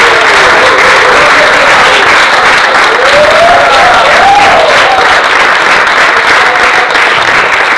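Audience applauding steadily, with one voice giving a rising and falling cheer about three to four seconds in.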